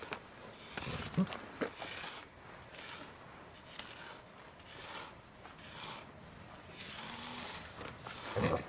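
Black pig rooting with its snout in dry dirt and leaf litter: scattered scraping, rustling and snuffling noises, with a short louder low sound near the end.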